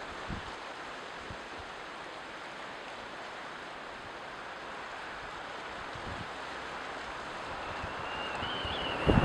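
Ocean surf: a steady wash of breaking waves that slowly swells louder toward the end.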